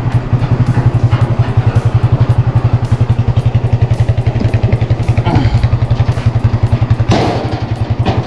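Motorcycle engine idling steadily, a rapid even pulse of about a dozen beats a second.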